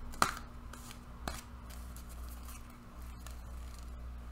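A deck of tarot cards being shuffled by hand and spread into a fan: a few crisp card snaps, the clearest about a quarter second in and again a little after a second, with soft sliding rustles of card against card between them.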